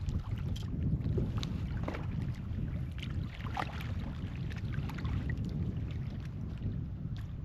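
Wind buffeting the microphone, a steady low rumble, with faint scattered ticks throughout.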